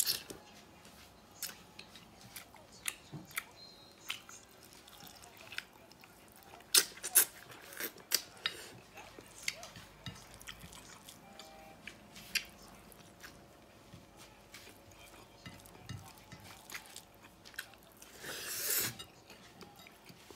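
Close-up eating sounds: chewing with irregular wet mouth clicks and smacks. Near the end comes one louder, noisy sound about a second long.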